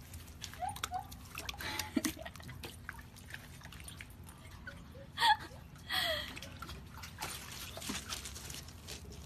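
Water sloshing and dripping as a corgi wades and paddles in a shallow garden pond, with scattered small splashes and two short louder sounds a little past the middle.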